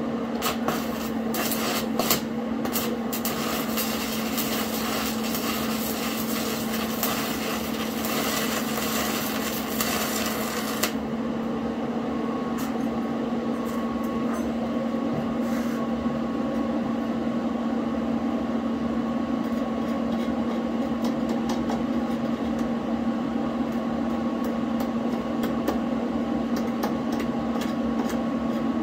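Stick (arc) welding: the electrode arc crackles and sizzles for about the first ten seconds, then breaks off suddenly. A steady hum runs throughout, and light scattered ticks follow once the arc stops.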